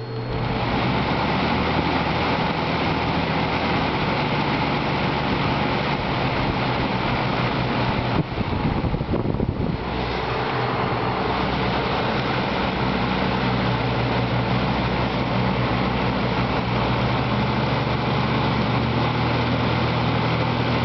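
Vintage Toastmaster 15-inch box fan started up and running at full power: a steady motor hum under a strong rush of air from its blades. There is a brief bump and change in the air noise about eight seconds in.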